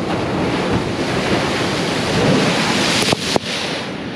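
Ocean waves surging and breaking against rocky shoreline, with wind buffeting the microphone. The sound swells around the middle and is broken twice briefly just after three seconds.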